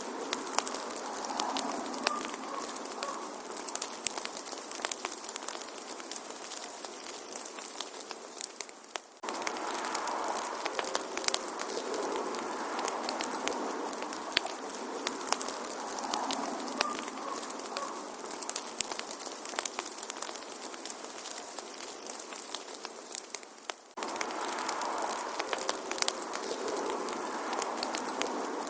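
Wood fire crackling, with frequent sharp pops over a soft hiss. About nine seconds in, and again some fifteen seconds later, the sound dips and then jumps back up abruptly where the recording loops.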